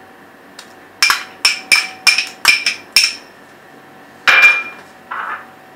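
A metal spoon tapped against the rim of a cooking pan: six quick ringing clinks, about three a second, then one louder clink with a brief ring about three quarters of the way in.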